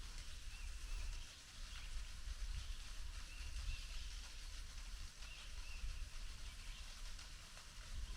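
Outdoor ambience: a steady low rumble on the microphone, with faint, high, wavering chirps scattered through it.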